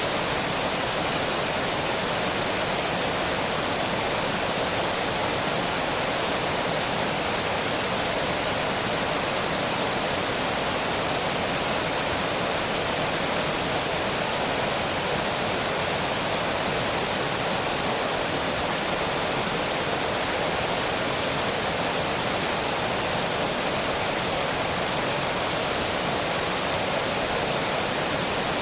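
Water pouring over a small dam in a steady, unbroken rush.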